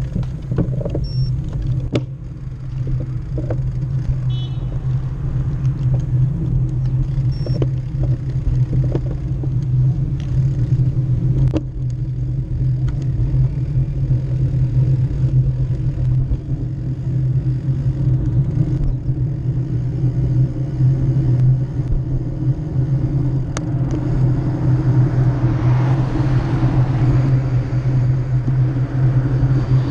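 Steady low wind rumble on a bicycle-mounted action camera's microphone, mixed with tyre noise on asphalt as the bike rolls down the pass road. A broader rushing hiss builds near the end as speed picks up behind a truck.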